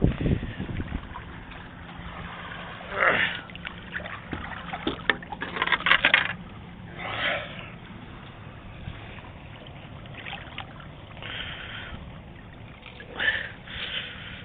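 Water splashing in several short bursts, the loudest about midway, over a faint steady hum.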